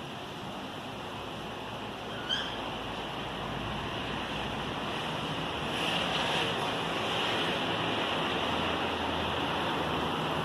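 Rain falling steadily, a little louder from about six seconds in, with one brief high chirp a couple of seconds in.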